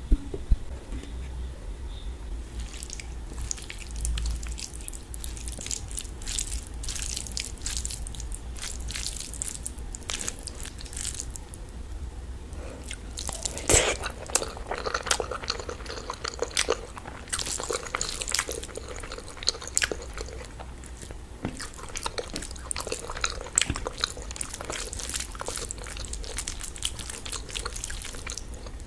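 Eating by hand: fingers squishing rice and curry, with chewing, many small wet clicks and smacks, and a louder crackle about halfway through.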